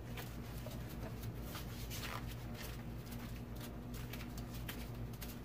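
Quick, irregular light ticks and spatters as white spray paint is flicked off gloved fingertips onto a spray-paint-art painting to make stars, over a steady low hum.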